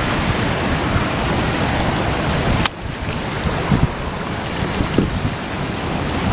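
Surf washing and foaming against lava rocks at the shoreline, with wind on the microphone; a single sharp click about two and a half seconds in.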